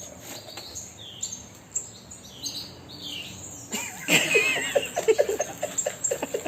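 A parrot chirping in short high notes, then, about four seconds in, breaking into louder, rapid warbling chatter.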